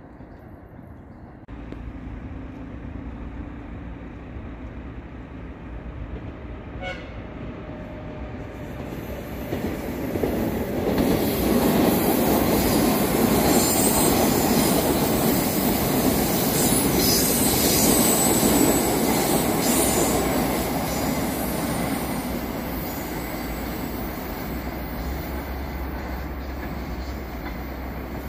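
Metro train passing on an open-air curve, its wheels rumbling and squealing on the curve. It grows louder over about ten seconds, is loudest for several seconds as it goes by, then slowly fades.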